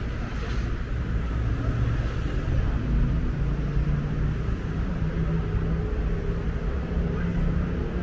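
Steady street traffic: car engines running past on the road, a constant low rumble.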